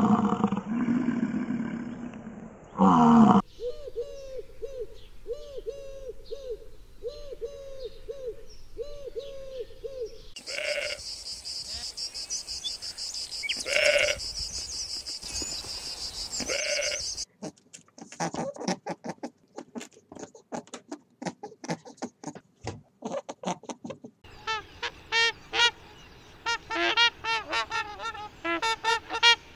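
A string of different animal calls, one after another. A loud call at the start gives way to short repeated calls about once a second, then a steady high buzz with a few louder calls, then rapid clicking and chirping.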